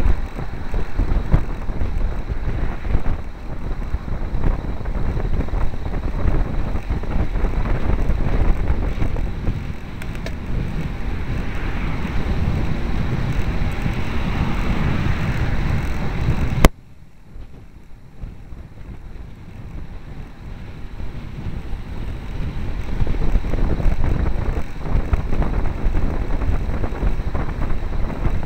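Wind buffeting the microphone of a bicycle-mounted camera while riding, a dense low rush mixed with road noise. About two-thirds of the way through a sharp click comes and the rush drops abruptly to much quieter, then builds back up gradually.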